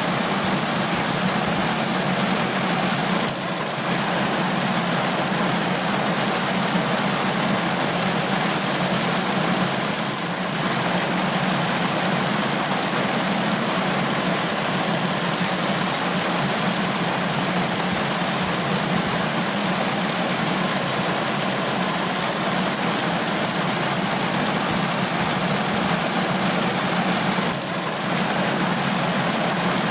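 Steady rain falling, an even continuous hiss that dips slightly three times.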